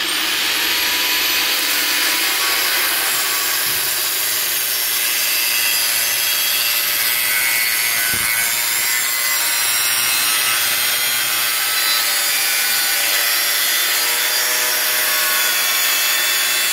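Handheld electric angle grinder with a cutting disc cutting through a sheet-metal panel: a loud, steady high whine with a harsh grinding hiss. It starts abruptly and spins up right at the start, then cuts without a break.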